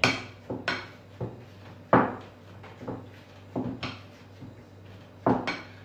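Potato masher working boiled potatoes in a bowl, knocking against the bowl in a series of about ten irregular knocks.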